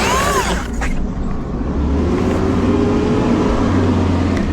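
Garbage truck running: a heavy engine rumble, with a short tone that rises and falls just after the start.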